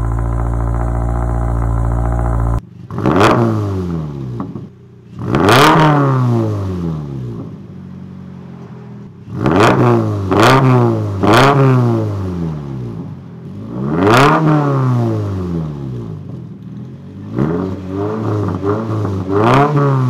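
2023 Subaru BRZ's flat-four engine through an AWE Tuning Track Edition cat-back exhaust. It idles steadily on a cold start, then after a cut is free-revved in short blips up to about 3500 rpm, each note rising and falling back to idle. The blips come twice, then three in quick succession about ten seconds in, once more, and as several smaller blips of about 2500 to 3500 rpm near the end.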